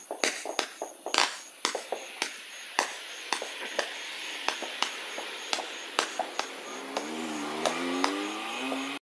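Multi-shot consumer firework cake firing comets in quick succession: sharp shots about two to three a second, over a growing hiss of burning comets. A faint wavering low tone comes in near the end, and the sound cuts off abruptly.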